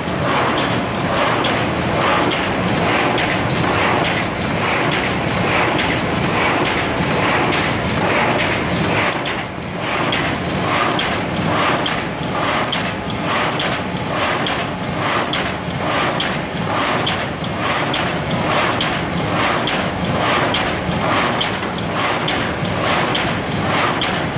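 MY1300 automatic top-feed duplex cutting machine running, its rollers and conveyor giving a steady mechanical noise with a regular clatter about twice a second.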